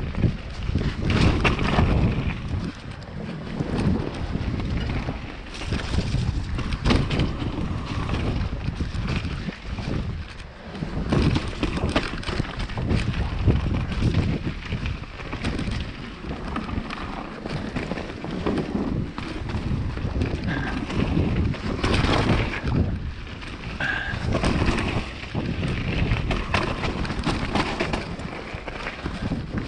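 Mountain bike descending a rough dirt forest trail: wind rumbling on the microphone, tyres rolling over dirt and roots, and frequent knocks and rattles from the bike as it hits bumps.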